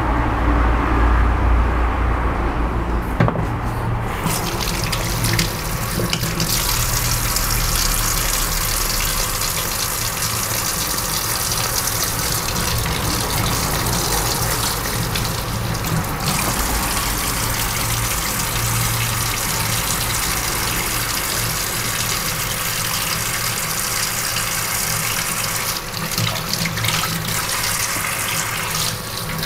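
Tap water running steadily into a sink, starting about four seconds in after a low rumble.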